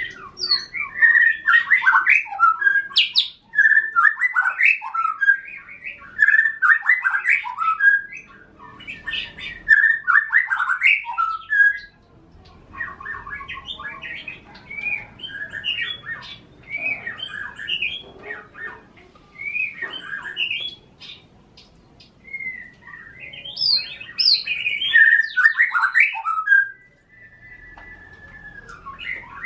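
Caged songbirds, a white-rumped shama and the canary hung beside it as a song tutor, singing in loud, rapidly varied phrases of chirps and whistles. The song goes softer in the middle, then loud again, and ends on a short held whistled note.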